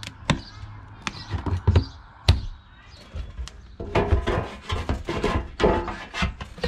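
Sharp knocks and wooden cracks as a flat metal pry blade is worked under cedar shake siding; then, about four seconds in, a plastic wall vent cap scrapes and bumps against the wood as it is pushed into the cut opening.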